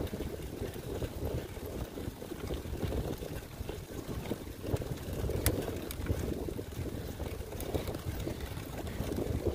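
Strong wind buffeting the microphone of a moving rider, a gusting low rumble without any engine tone. A single sharp click about five and a half seconds in.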